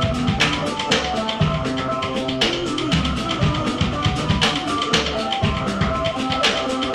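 Live noise-rock from a drum kit and a Casio keyboard. The drums beat out a busy rhythm of bass-drum and snare hits under held, buzzing keyboard notes that change pitch every second or so.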